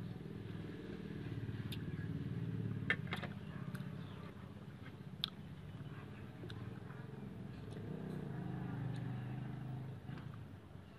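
Engine of a passing motor vehicle running, its low rumble swelling about a second in and again near the end, with a few sharp clicks of cutlery against a plate.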